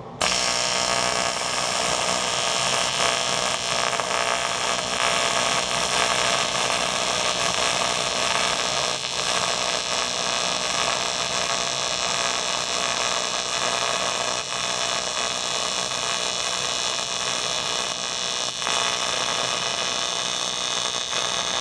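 AC TIG welding arc on 2 mm AMg aluminium sheet at about 44 amps: a steady buzzing hiss, struck suddenly at the start and cut off near the end.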